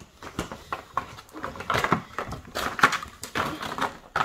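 Toys and packaging being handled on a table: a run of irregular crackles and rustles.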